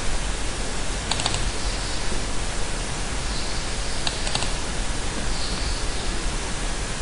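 Steady hiss from the recording microphone, with two quick pairs of computer mouse clicks, about a second in and about four seconds in: double-clicks opening folders in a file dialog.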